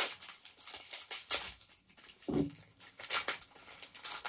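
Packaging of deli cheese being handled and opened by hand, with irregular crinkling and tearing.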